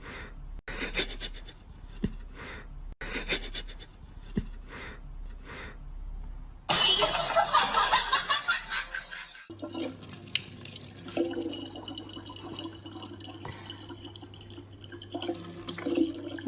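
A cat hissing in a series of short bursts, then one long, loud hiss. After a sudden change, a thin stream of water pours from a tap into a plastic water jug over a steady low hum.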